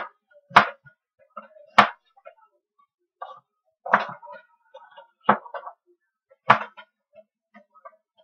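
Knife chopping an onion on a cutting board: five sharp knocks of the blade on the board, a second or two apart, with softer cutting and scraping sounds between.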